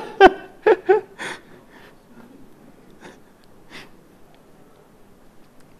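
A man's brief laughter trailing off in the first second, then quiet room tone with a few faint breaths near the microphone.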